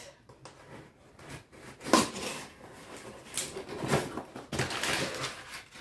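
Hands opening and handling a cardboard book subscription box and its packaging: rustling and a few short knocks and scrapes, the sharpest about two seconds in.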